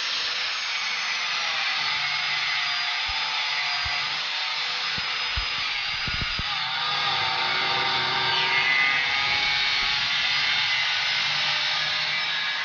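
Handheld angle grinder running against steel, throwing sparks: a steady, loud high whine whose pitch sags now and then under load, with a few low knocks partway through.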